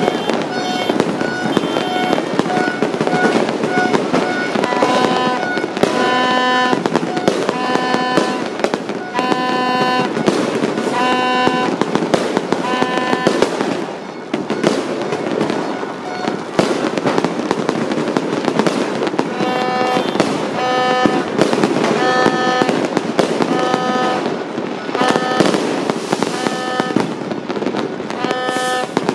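Many New Year fireworks and firecrackers going off at once, a continuous crackle of bangs and pops at mixed distances. Over it a repeating electronic-sounding tone pulses, short beeps at first, then longer tones about once a second.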